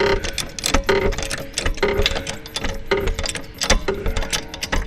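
Metal hand tools clicking and clinking against metal, in uneven strokes roughly once a second, each with a brief ring.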